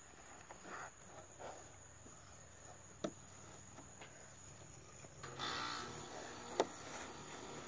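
A pig nosing at a plastic wading pool: faint soft snuffles and two sharp taps, over a steady high drone of insects, with a rising rustling noise from about five seconds in.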